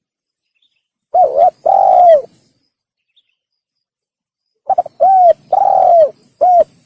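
Male spotted dove (tekukur) cooing: two phrases, one about a second in and one near the end. Each phrase is a few short, arching coos around one longer coo.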